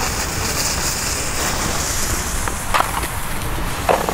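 Steady hiss of lit smoke fireworks as their fuses and smoke charges burn, with two short knocks in the second half.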